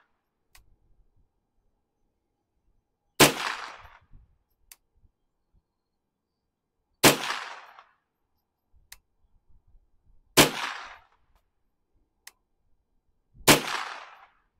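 Four rifle shots, one every three to four seconds, each with a short echoing tail. A faint click follows each shot about a second and a half later.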